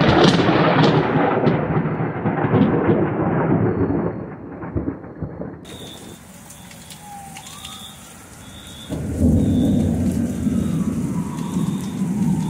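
A close thunderclap with several sharp cracks, rumbling and fading over about five seconds. Then steady rain falls, and about nine seconds in another peal of thunder rumbles over it.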